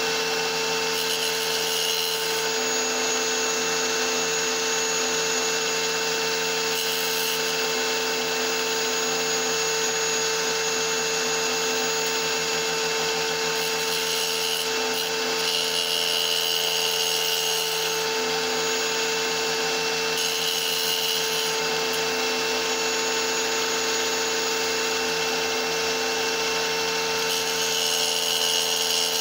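Small wet tile saw running with a steady whine, its blade grinding through a small piece of rock fed into it to cut a die.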